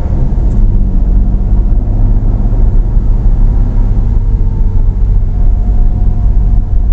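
Car engine and heavy road rumble heard from inside the cabin as the car pulls through a junction in first gear, with a faint engine note rising in pitch in the second half.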